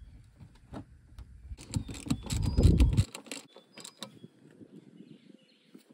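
Ratcheting wrench clicking as the 12 mm brake caliper slide bolts are run in: a dense, loud run of clicks with a heavier clatter about two seconds in, then slower scattered clicks.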